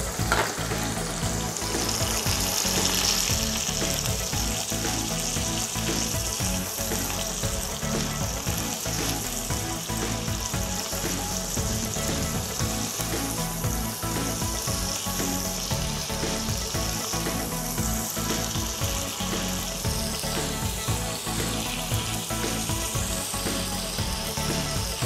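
Cubes of pressure-cooked beef sizzling steadily as they fry in hot oil in a frying pan, stirred with a spatula.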